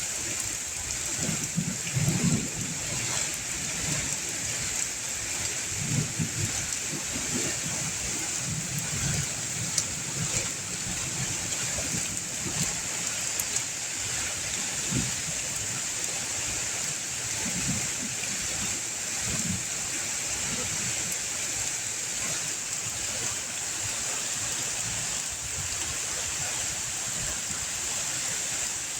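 Steady rain falling, a dense even hiss, with a few brief low sounds now and then.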